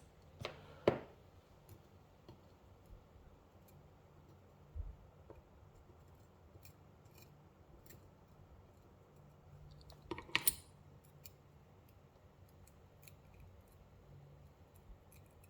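Faint, scattered clicks and taps of small metal lock parts being handled, with a louder cluster of clicks about ten seconds in.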